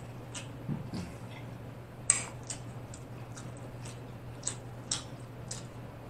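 A person chewing a mouthful of food into a close microphone: scattered soft, wet mouth clicks and lip smacks, one sharper smack about two seconds in, over a steady low hum.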